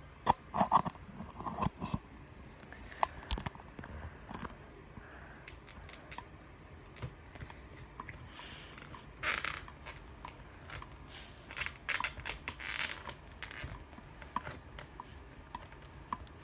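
Super sticky slime being stretched and squished by hand, making scattered sticky clicks and crackles, with louder crackly bursts about nine and twelve seconds in.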